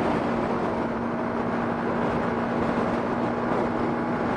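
Motorcycle cruising at steady motorway speed: a constant engine drone with one steady hum through it, under a rush of wind and road noise.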